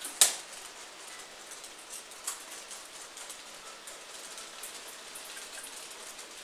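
N gauge model trains running on the layout: a faint, crackly ticking of small wheels over rail joints and pointwork, with one sharp click just after the start and a smaller one about two seconds later.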